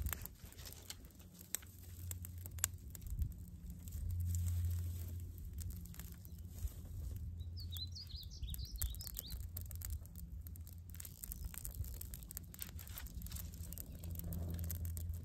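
Dry twigs crackling and snapping as a small twig fire catches and sticks are handled and fed into it. A low rumble swells about four seconds in, and a bird gives a quick run of high chirps about halfway through.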